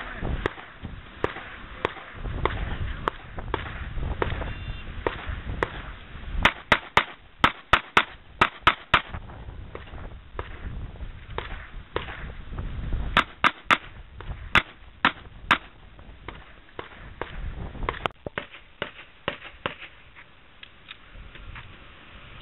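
Gunshots fired in quick strings during a practical shooting drill: a rapid run of about nine shots from about six seconds in, then about six more from about thirteen seconds in, with fainter single shots scattered between. Wind rumbles on the microphone.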